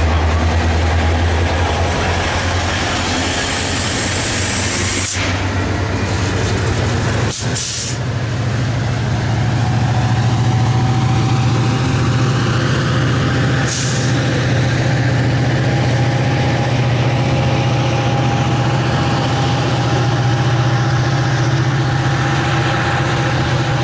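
Metra MP36PH-3C locomotive's EMD 645 diesel prime mover notching up under load as it shoves a commuter train away. The deep engine drone steps up in pitch a few seconds in and then holds, with a faint whine rising slowly after. A few short hisses of air cut in along the way.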